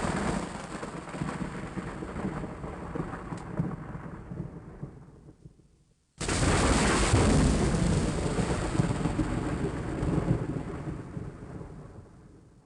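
Two thunder sound effects one after the other, each a loud clap that rumbles and fades away. The first is already sounding at the start and cuts off abruptly about six seconds in, and the second begins suddenly just after and dies away near the end.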